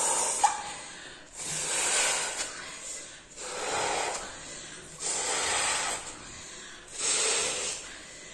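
A latex party balloon being blown up by mouth: five long breathy puffs of air pushed into it, each about a second long, with short pauses for breath between.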